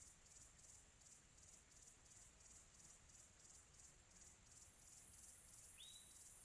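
Faint crickets chirping in a steady pulsed rhythm, about two or three chirps a second, over a continuous high insect trill in a quiet tropical afternoon ambience. A single short rising chirp sounds near the end.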